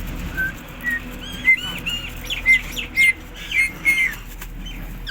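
Indian ringneck parakeet chirping: a quick run of a dozen or so short, sharp calls that starts about half a second in and stops shortly after four seconds.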